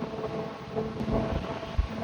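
Ferry's engines running with a steady drone, with wind buffeting the microphone in uneven low rumbles.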